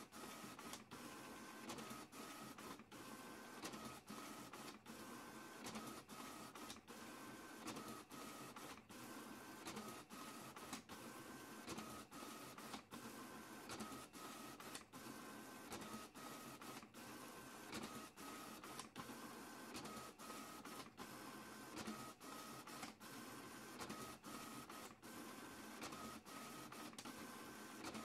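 A printer printing, its paper feeding out. The motor whine runs in repeated passes broken by short pauses about once a second.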